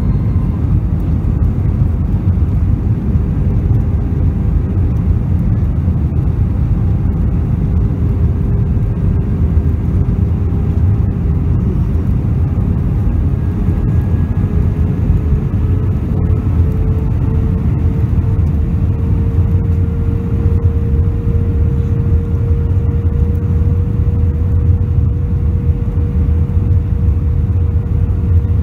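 Steady low cabin rumble of a jet airliner in flight, with a faint tone that rises slowly in pitch from about a third of the way in and then holds steady.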